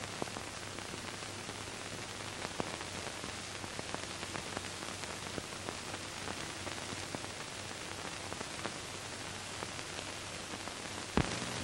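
Steady hiss with scattered small crackles and a faint low hum, the noise of the recording's soundtrack with no speech; a single sharp pop a little before the end.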